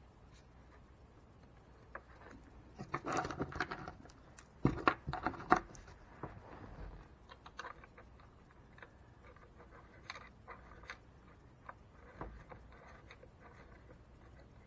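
Faint metallic clicks and light rattles of nuts and washers being handled and spun by hand onto bolts through a plywood gusset, with rustling. A busier run of sharper clicks comes between about three and six seconds in.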